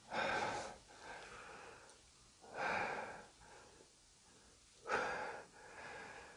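A person breathing heavily close to the microphone: three breaths, each a louder rush of air followed by a softer one.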